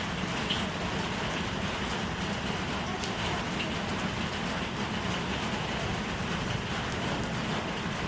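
Steady hiss of falling water, even and unbroken.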